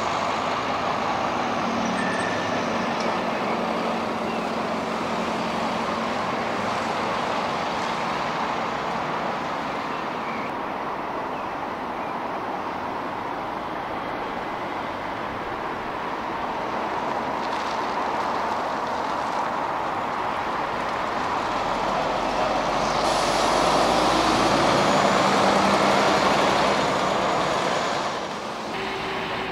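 Double-decker buses running and moving through a bus station, a steady engine hum mixed with traffic noise. The sound swells as a bus passes close about three-quarters of the way through, then drops off suddenly near the end.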